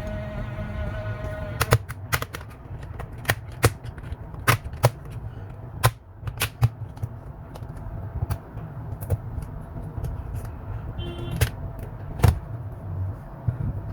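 Irregular sharp plastic clicks and snaps as an HP Chromebook's plastic case is worked open, sometimes two in quick succession.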